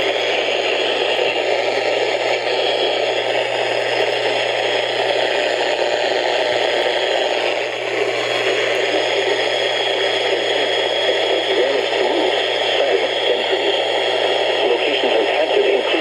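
Radio static: a steady hiss from a radio receiver with no programme coming through, with a low hum underneath.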